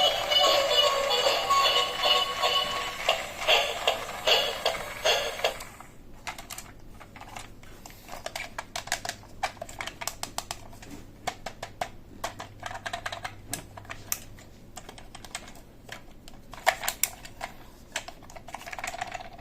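Music with a steady tune for the first five or six seconds, then many light, sharp clicks and taps in irregular quick runs: hard plastic toy parts being handled and clicked together.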